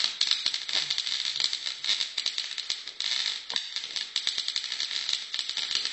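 Arc welder welding a broken handle back onto a wok: a steady, dense crackle and sputter of the arc, with a brief dip about three seconds in.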